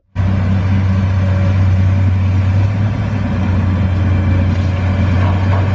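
Excavator engine running steadily at idle, a deep constant hum under a rough mechanical noise, cutting in abruptly right at the start.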